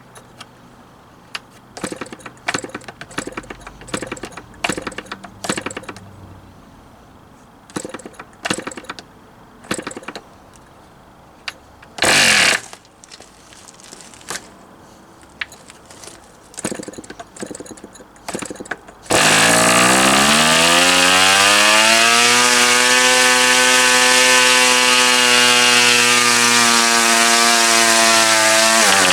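Progress AeroWorks PAW .29 two-stroke model diesel engine being started: repeated clicks and knocks as it is turned over, one brief firing burst about 12 s in, then it catches about 19 s in and runs at high speed, its pitch rising and then holding steady.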